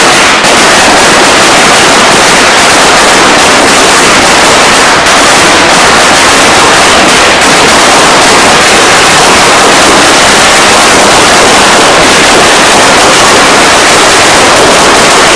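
A long string of Chinese firecrackers going off, the bangs so rapid that they run together into one continuous, very loud crackle.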